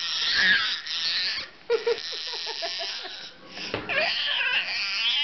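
A baby making high-pitched, raspy squealing noises in three stretches, with short breaks about one and a half and three and a half seconds in.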